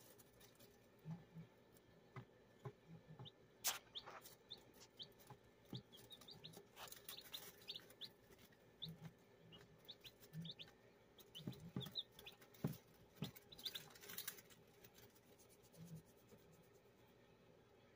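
Day-old Belgian Liège x Donnelly's Pyle gamefowl chicks peeping faintly: short, high cheeps scattered through, busiest in the middle, with a few soft clicks.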